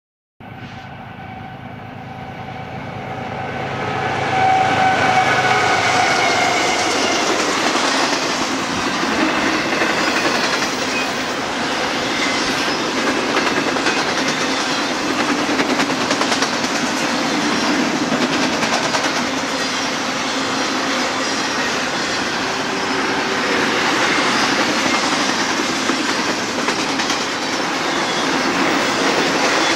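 Double-stack intermodal freight train passing. Sound swells over the first few seconds, with steady tones during the first several seconds. Then a long, steady rumble and clatter of wheels as the container well cars roll by.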